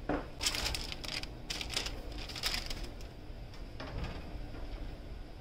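Oven being loaded: the oven door handled and a pan set onto the rack, a series of short clanks and scrapes, the busiest in the first few seconds.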